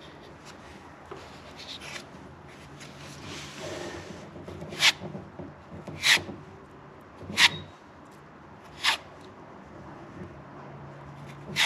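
A hand spreader scraping fairing compound across a fiberglass cockpit surface as it is thinned and smoothed. There is soft rubbing at first, then from about five seconds in, five sharper scraping strokes, the first four a little over a second apart.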